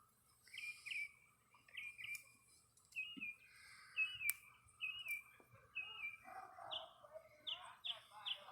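A bird calling outdoors: a short chirp that drops in pitch, repeated about once a second and coming quicker and higher near the end.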